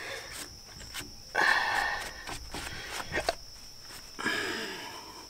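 Paper towel rubbing over the cast-aluminium casing of an Eaton M112 supercharger, with two rasping wipes: one about a second long shortly after the start, a shorter one near the end, and a few light clicks between them.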